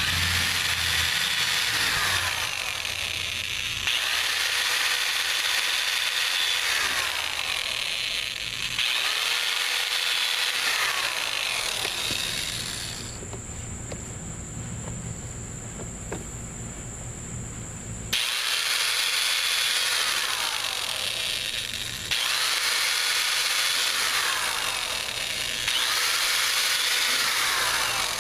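Power drill with a small bit drilling pilot holes through a fan shroud: the motor spins up, holds, and winds down again for each hole, about six times, with a quieter pause near the middle.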